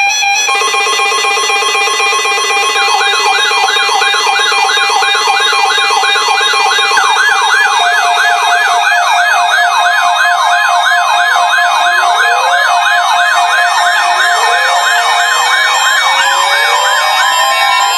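Several emergency alert receivers sounding their alert tones at once. Steady tones are layered over a warbling, siren-like alarm that repeats a few times a second. A lower pulsing beep stops about nine seconds in, and rising sweeps join later.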